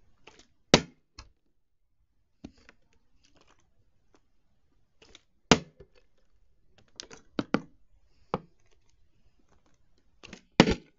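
Plastic water bottle tossed in bottle flips and landing on a flat board: a series of short hollow knocks and clatters as it hits and tips over, the sharpest about a second in, around five and a half seconds in, and near the end.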